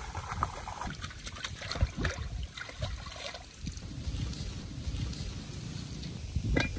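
Pond water sloshing and splashing as a metal wok is rinsed in it and the water poured out, with scattered small clicks and one sharp knock near the end.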